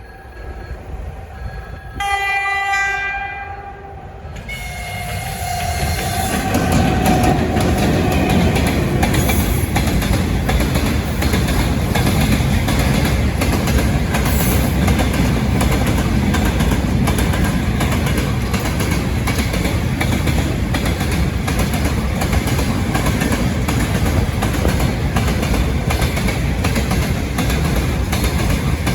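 Locomotive horn sounds once about two seconds in, a second shorter blast slides slightly lower, then a long train rolls past a level crossing with a steady loud rumble and wheel clatter.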